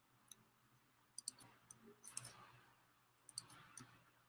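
Faint, scattered computer mouse clicks over near silence, a dozen or so short clicks at uneven intervals.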